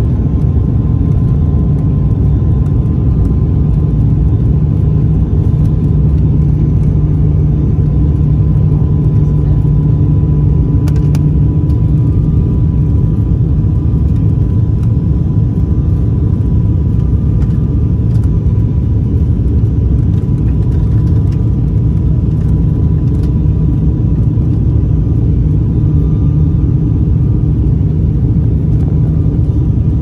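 Steady cabin noise of a turboprop airliner in flight: an even, loud low rumble of engines and airflow with a thin steady tone above it.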